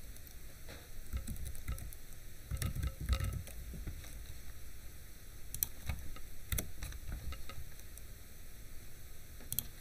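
Computer keyboard keys clicking a few at a time, with pauses between, as a word is typed and corrected, over a low background rumble and hiss.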